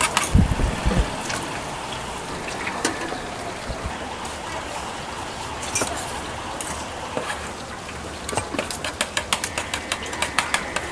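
Fish cakes deep-frying in oil, a steady sizzle, with a quick run of sharp clicks near the end.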